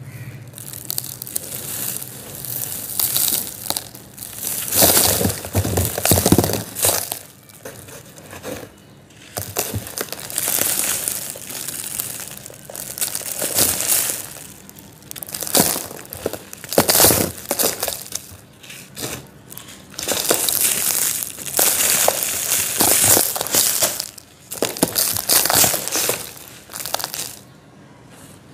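Hands crushing molded domes of dry yellow sand, each squeeze giving a crunch followed by the hiss of loose grains pouring down. The crunching comes in about a dozen separate bouts with short pauses between.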